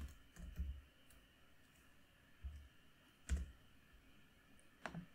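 A few separate clicks of a computer mouse and keyboard, with quiet between them; the sharpest comes a little over three seconds in.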